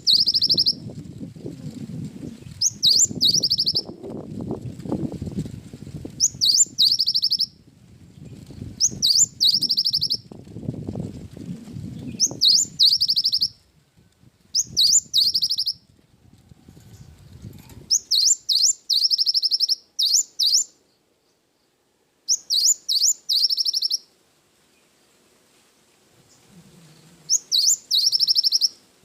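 Cinereous tit (gelatik batu) singing. It repeats one short, high phrase every two to three seconds: two quick sweeping notes, then a brief buzzy trill, with a longer pause about two-thirds of the way in. A low rumbling noise lies under the first half and fades out.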